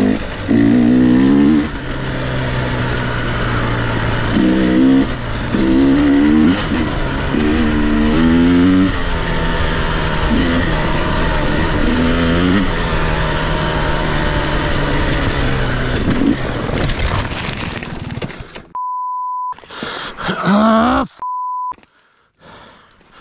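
Two-stroke 300 enduro dirt bike engine revving up and dropping back repeatedly as the rider shifts and works the throttle, until the engine note dies away about seventeen seconds in as the bike goes down. Then two short censor bleeps cover the sound, with a rising groan between them.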